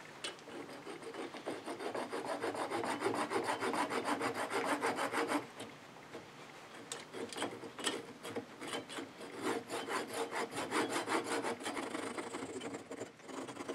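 Flush cut saw cutting by hand through a small waste nub of wood at the end of a turned pepper mill blank, in quick back-and-forth strokes. There is a short pause about halfway, then the sawing resumes.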